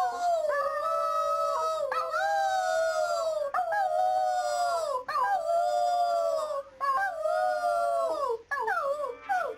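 A dog howling: a run of drawn-out howls, each about a second long and falling in pitch at its end.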